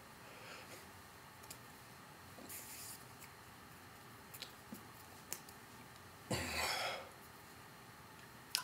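A signer's faint body and mouth noises in a quiet small room: soft breaths, small clicks and ticks, a louder rush of breath about six seconds in, and a sharp click near the end.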